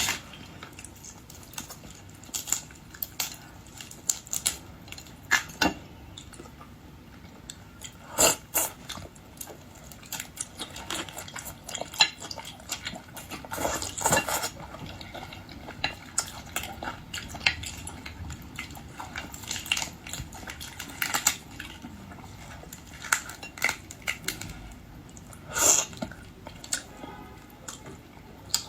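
Close-miked eating of boiled shrimp and lobster: irregular clicks and crackles of shells being handled and cracked, chewing, and occasional clinks of dishes or utensils.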